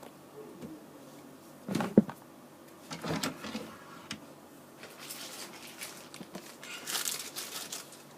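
Handling noises as things are picked up and moved: a few knocks, a sharp one about two seconds in, then a longer rustle from about five seconds in.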